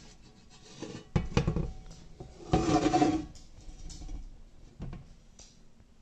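Heavy cast iron skillet knocking and scraping on a glass cooktop as it is turned over: two sharp knocks just over a second in, then a louder, longer grinding scrape about two and a half seconds in, and a light knock near the end.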